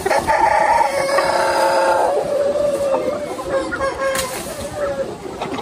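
A rooster crows once, one long crow of about five seconds that sags slightly in pitch near its end. Other chickens in a feeding flock cluck around it.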